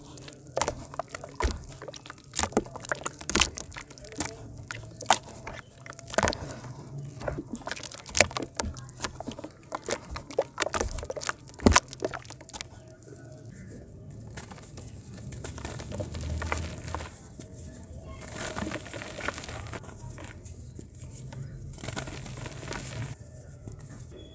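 Hands squeezing and kneading soft wet mud under muddy water in a tub, with many short wet squelches and splashes in the first half, giving way to softer sloshing and swishing of the water.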